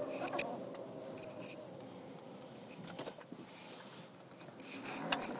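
Drivetrain noise of a 2001 BMW 325i (E46): a faint gliding whine fades out in the first second, then a low rumble with scattered scraping and clicking sounds. This is the odd noise that appears only while the car is cold, which the owner suspects comes from the transmission.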